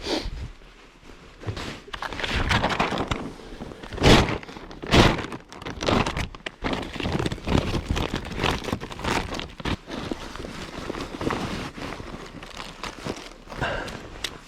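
Things being handled by hand: rustling and crinkling with irregular knocks and clatter, two louder knocks about four and five seconds in.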